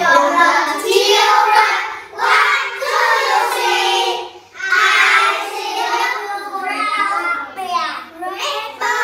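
A group of young children singing together in English, a sing-along song in phrases with short breaks between them.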